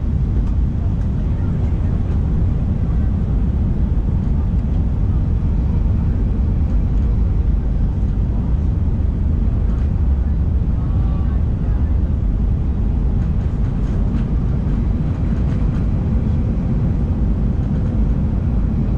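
Steady cabin noise inside an Airbus A319 airliner in flight: the deep, even rumble of the jet engines and rushing air heard from a window seat.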